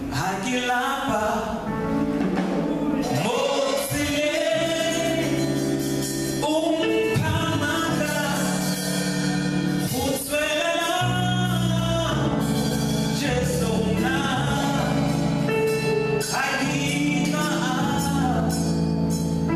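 Gospel song led by a man's singing voice over sustained keyboard chords.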